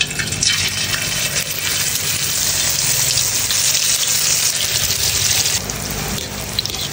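Spoonfuls of egg-fritter batter sizzling and bubbling in hot oil in a steel wok: a steady frying hiss that eases off a little about five and a half seconds in.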